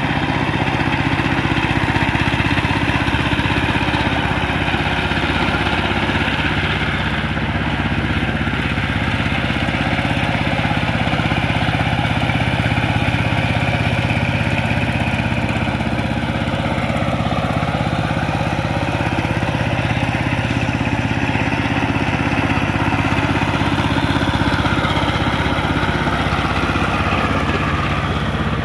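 Two-wheel power tiller's single-cylinder diesel engine running steadily under load as it tills a flooded rice paddy.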